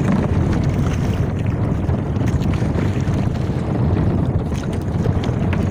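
Steady wind buffeting the microphone, with sea water washing against the hull and bamboo outrigger floats of a small outrigger boat.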